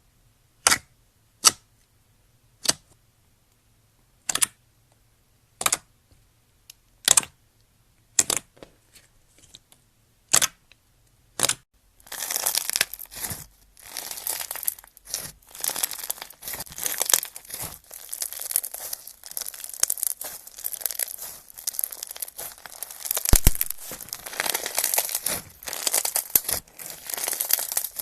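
Slime ASMR: about ten crisp snipping sounds, roughly one a second, then from midway a continuous crackling and crinkling as slime is pressed and pulled.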